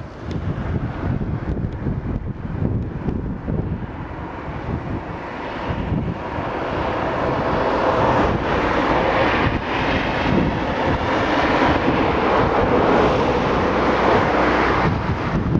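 Wind buffeting the microphone with a low rumble, joined from about six seconds in by a louder, steady rushing noise.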